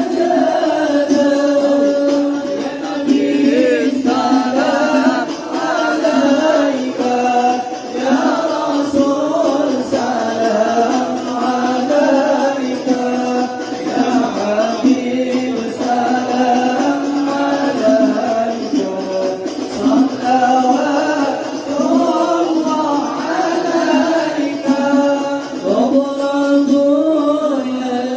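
A group of Islamic boarding-school students singing a devotional chant in unison for the mahalul qiyam, the standing salutation to the Prophet. The voices hold long, melismatic lines without a break.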